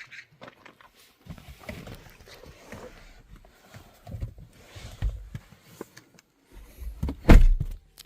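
Rustling and handling noises with several low thumps, the loudest about seven seconds in.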